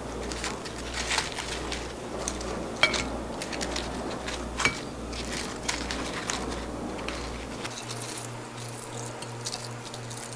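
Hands handling crisp battered deep-fried squid pieces and setting them onto a ceramic plate: scattered light crackles, rustles and soft taps.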